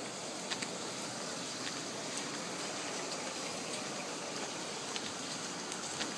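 Rain falling on paving and water: a steady hiss with scattered small ticks of drops.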